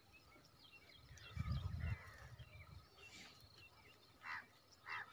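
Faint open-field ambience with scattered small bird chirps, and a brief low rumble about a second and a half in.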